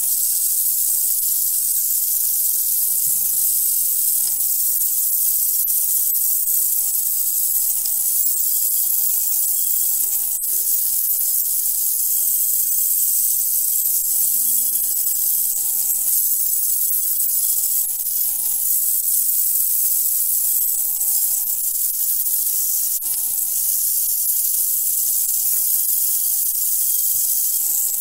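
Cordless angle grinder running steadily with a worn flap disc, sanding old paint and rust off a model steam engine's metal baseplate down to bare metal. A constant high motor whine sits under a loud hiss of abrasive on metal.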